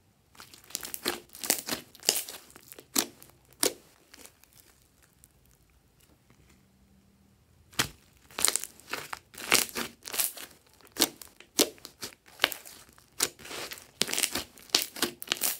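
Glossy green slime being pressed, stretched and kneaded by hand, giving quick irregular sticky clicks and pops as it pulls apart and traps air. The popping stops for about four seconds in the middle, then comes back thicker.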